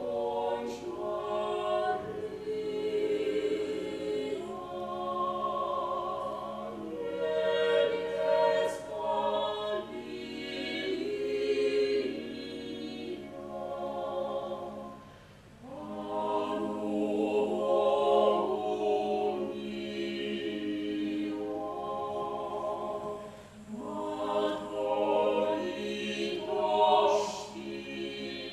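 Mixed vocal ensemble of men and women singing sacred choral music, likely unaccompanied, in long sustained phrases. The singing drops away briefly about 15 and 23 seconds in before the next phrase.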